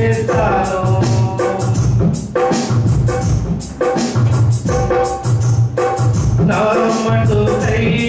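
Telugu Christian worship song played live through a PA: amplified music with a steady percussion beat, and men singing into microphones.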